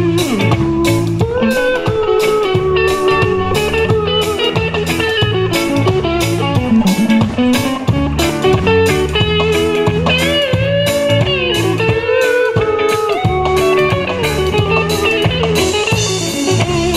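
Live rock band playing an instrumental passage: an electric guitar lead with bent notes over electric bass and a drum kit keeping a steady beat.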